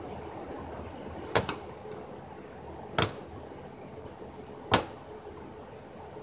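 Sharp plastic snaps of trim retaining clips being pried out of a car's fender liner, three of them about a second and a half apart, the first doubled.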